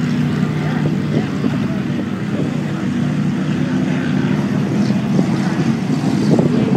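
Racing powerboat engines droning steadily as the boats run across open water, a low, even hum with a rougher wash of noise over it.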